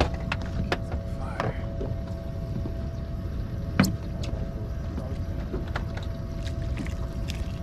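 Wind on the microphone and water against the hull of a drifting fishing boat, with a faint steady tone, scattered light clicks of rods and reels and one sharp knock about four seconds in.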